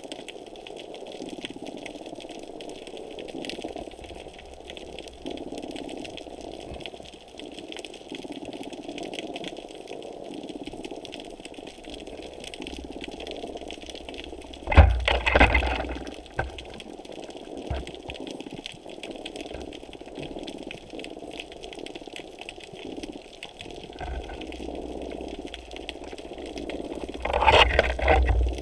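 Underwater sound through a GoPro housing on a seabed camera platform: a steady muffled wash of moving water. About halfway, and again near the end, loud low thumps and rumbles break in as the rig is jolted and swings.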